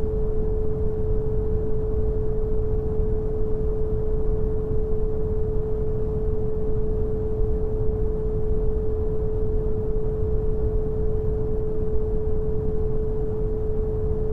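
Synthetic brown noise, a steady hiss strongest in the bass, with a pure 432 Hz sine tone held unchanging over it.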